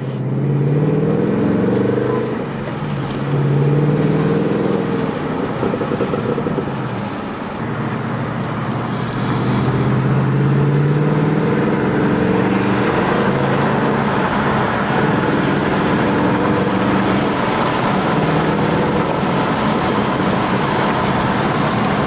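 Supercharged 2019 Mustang GT's 5.0-litre V8 accelerating through the gears, heard from inside the cabin. The engine note rises in pitch, with breaks at upshifts about two and a half and seven and a half seconds in, then settles into steadier running at speed.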